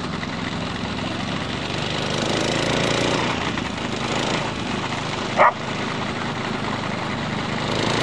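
Steady engine drone of a lure-coursing machine's motor, with a dog giving one short, sharp bark about five and a half seconds in.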